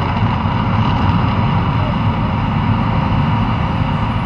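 Steady low rumble from the Mirage Volcano attraction's eruption effects, easing slightly as the eruption dies down.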